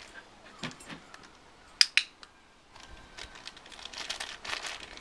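A dog's claws and paws tapping and scuffing on an upturned plastic bowl and stone patio slabs, in a run of small irregular clicks that grows busier over the last two seconds. About two seconds in come two sharp, much louder clicks in quick succession.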